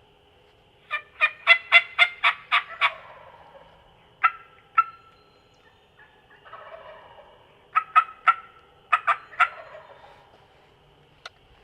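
Wild turkey hen yelping: a run of about eight sharp yelps at roughly four a second, then two more, then another run of about six yelps near the end.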